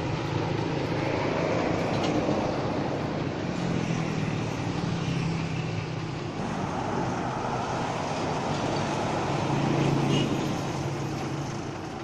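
Heavy vehicle engines running with road traffic noise, a steady low rumble that swells about two seconds in and again about ten seconds in.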